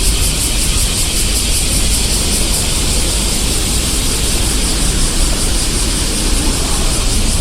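Street ambience: a steady, unbroken din of traffic, with a low rumble under a strong hiss.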